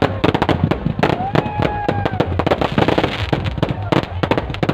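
Fireworks and firecrackers going off in a dense, rapid string of bangs and crackles, with a few held pitched tones above them.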